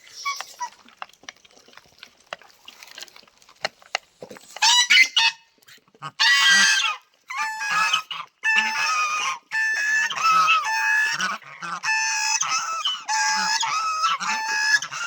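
Domestic poultry calling loudly, a run of harsh, repeated, pitched calls starting about four and a half seconds in, with scattered faint clicks before them.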